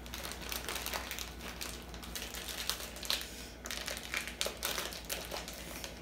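Plastic zip-top freezer bag crinkling as it is handled and its zip seal pressed shut, an irregular run of crackles and small clicks.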